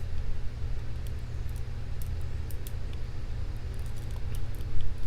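Faint, sparse clicks of a lock pick and tension wrench working the pin stack of a Paclock 200A padlock, over a steady low rumble. The picker suspects a high-set pin he is failing to reach.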